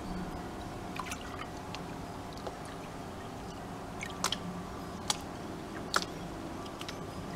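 Water sloshing and dripping as a plastic gold pan is dipped and tilted in a tub of water while panning, with a handful of sharp drips at irregular intervals.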